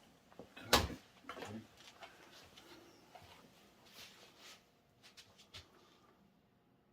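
Hands fitting plastic J-channel strips onto a box fan and furnace filter: one sharp knock a little under a second in, then softer rustles and a few small clicks.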